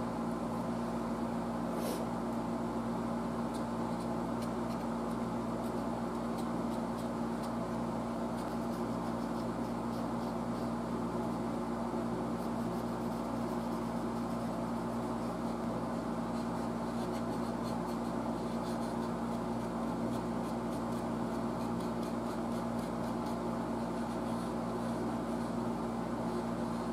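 Steady machine hum with a low tone, under faint scratching of a black Marks-A-Lot felt-tip marker rubbed over a radio knob.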